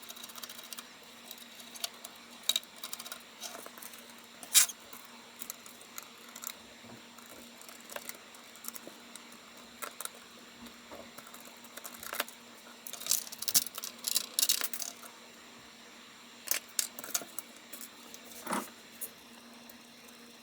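Scattered clicks, taps and light rattles of small computer parts and tools being handled, with a cluster of quick clicks about two-thirds of the way through, over a faint steady hum.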